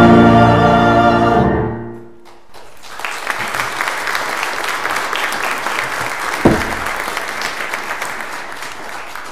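A choir and grand piano end an anthem on a held final chord that dies away about two seconds in, then a congregation applauds steadily. A brief falling tone cuts through the applause about six and a half seconds in.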